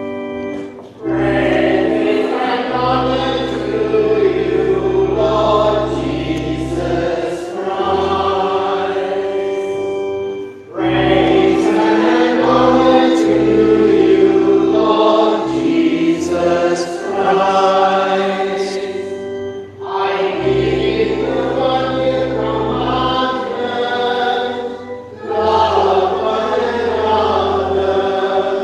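Sung church music: voices singing in phrases over long, sustained organ notes, with short breaks between phrases.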